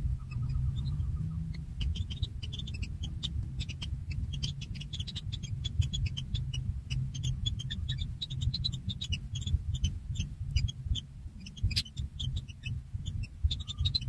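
Nestling birds begging: a rapid, dense stream of short, high chirps starting about two seconds in, over a steady low rumble.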